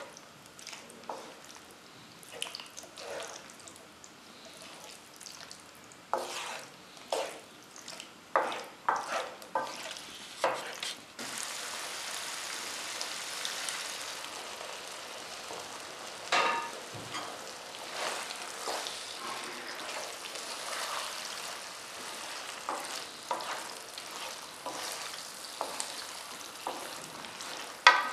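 A wooden spoon stirs pasta and sauce in a frying pan, with irregular scrapes and knocks against the pan. About eleven seconds in, a ladle of pasta cooking water goes into the hot pan and it sizzles steadily while the stirring goes on.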